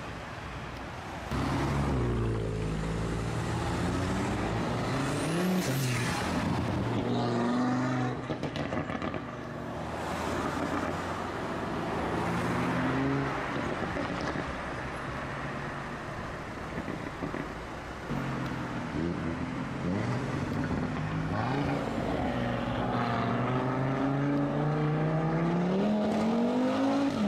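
Audi RS3's turbocharged 2.5-litre five-cylinder engine accelerating hard several times. The revs climb and drop at gear changes, with a long climbing pull near the end.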